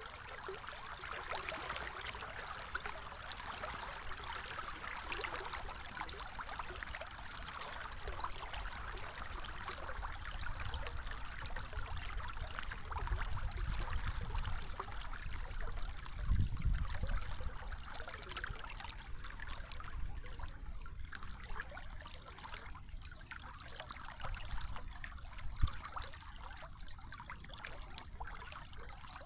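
Water running over a weir into shallow, stony water: a steady splashing trickle. Low rumbling bumps come through in the middle, and there is one sharp thump near the end.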